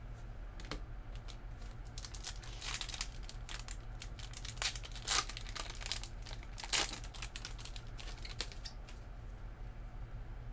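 Foil trading-card pack wrapper crinkling and tearing as the pack is opened by hand, in short rustles about two and a half, five and seven seconds in.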